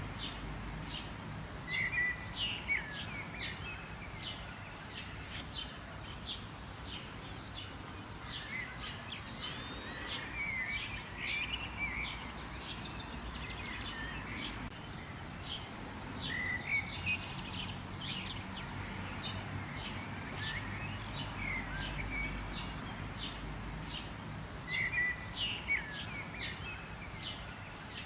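Several birds chirping and calling in quick short notes over a steady low background hum.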